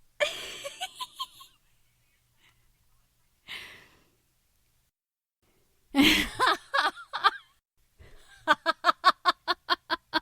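A woman laughing in several bouts, with breathy, wheezing intakes between them. It ends in a long run of quick, evenly spaced "ha" pulses, about four a second.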